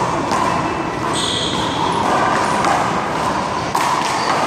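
Rubber handball smacking against hands and the wall during a one-wall rally: a few sharp slaps, one of the loudest about three-quarters of the way through, over steady background noise.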